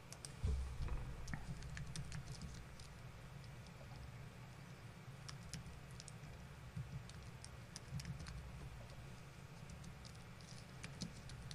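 Typing on a computer keyboard: irregular, light key clicks as a short line of text is entered.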